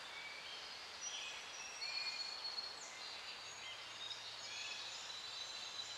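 Faint outdoor nature ambience: birds chirping in short, high calls over a soft steady hiss.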